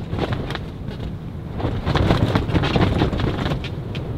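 Storm wind gusting against a rooftop tent, heard from inside: a steady low rush of wind with the tent fabric rustling and flapping in quick sharp snaps.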